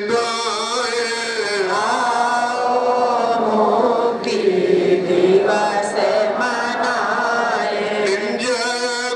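A man chanting into a microphone in long, drawn-out notes whose pitch wavers and slides, with short breaks for breath.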